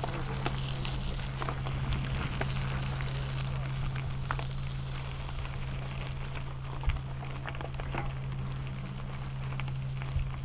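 Bicycle tyres rolling slowly over loose gravel: a scattered, irregular crunching and clicking of stones, over a steady low hum.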